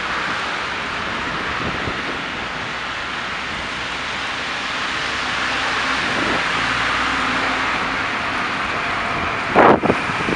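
Steady hiss of city traffic on slushy snow-covered roads, tyres and engines passing, with a brief loud burst near the end.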